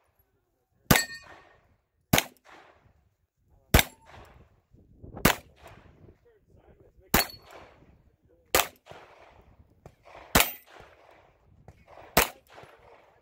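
Handgun firing eight single shots at a slow, steady pace, about one every one and a half to two seconds, starting about a second in. Each shot is followed by a short ring from the steel plate targets.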